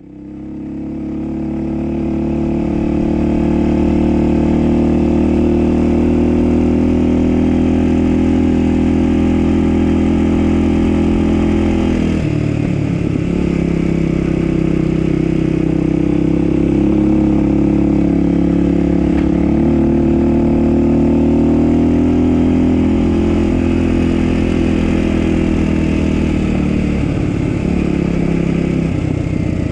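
Dirt bike engine running with a steady, even note that fades in over the first few seconds. The note drops briefly about twelve seconds in, then settles again at a slightly different pitch.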